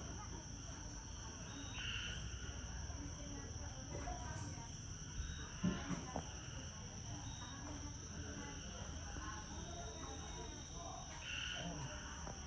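Evening insect chorus: a steady high drone of crickets or similar insects, with a few short animal calls now and then and one louder brief sound about halfway through.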